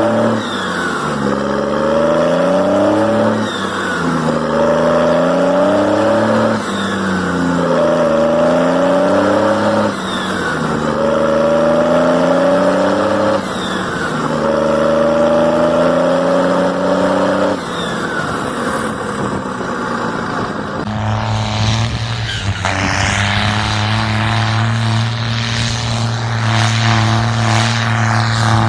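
Turbocharged diesel tractor engine with a tuned injection pump, revved hard and let back down over and over, about every three and a half seconds: each rev climbs, holds for a couple of seconds, then drops. About 21 seconds in, an edit cuts to an engine running steadily at high revs.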